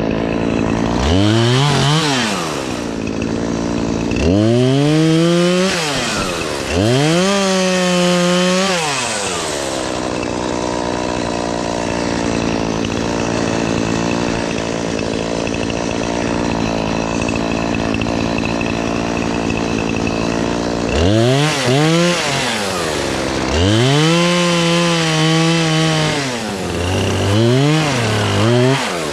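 Chainsaw revving up to full throttle six times and dropping back to idle, as in cutting limbs: three revs in the first ten seconds, a long stretch of idling, then three more near the end.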